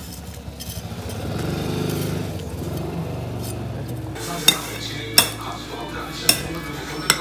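A low rumble, then from about four seconds in four sharp clinks of metal tongs and a cutting blade against a plate of grilled meat.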